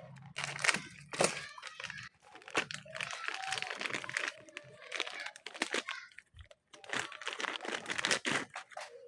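Handling noise: irregular crinkling and rustling with sharp clicks, in bursts with short pauses.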